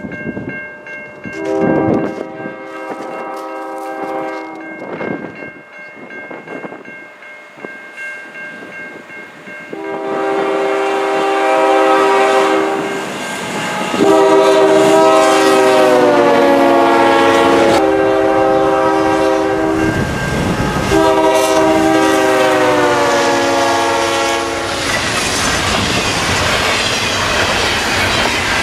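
Diesel locomotive's multi-note air horn on a CN intermodal train, with its lead unit an ES44DC, sounding one blast and then two long blasts, a short and a long, the grade-crossing signal. The chord's pitch drops as the lead locomotive passes. Near the end the double-stack container cars take over, rumbling past with the clickety-clack of wheels over rail joints.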